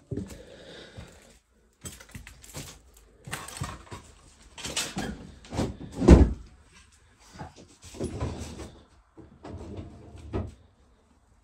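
Kitchen cupboard doors and household items being handled: irregular knocks, clunks and rustles, the loudest a heavy thud about six seconds in.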